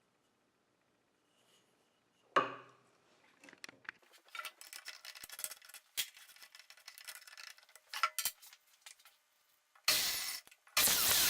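Small hard objects and tools being handled on a workbench: a knock about two seconds in, then scattered clinks and light scraping, and two loud rasping scrapes near the end.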